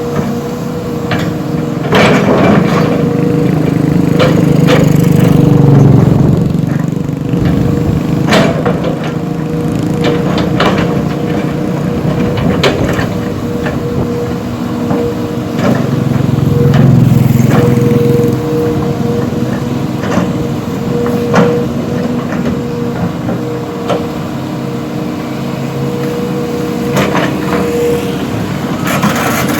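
Heavy diesel machinery running with a steady engine tone that swells louder twice under load, while sharp knocks and cracks of impacts recur throughout.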